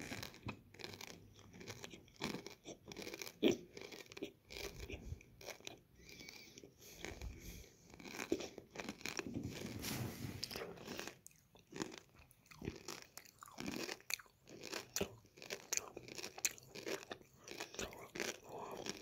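Sweets being crunched and chewed with the mouth right at the microphone, ASMR-style: many irregular, close crunches and wet chewing clicks.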